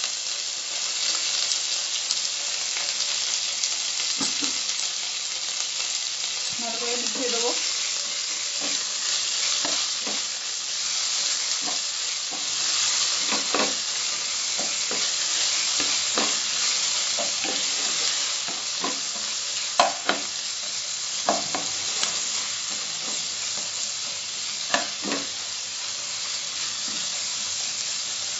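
Oil sizzling steadily as freshly added fenugreek leaves fry with sliced onion in a non-stick kadai, while a spatula stirs and now and then knocks and scrapes against the pan.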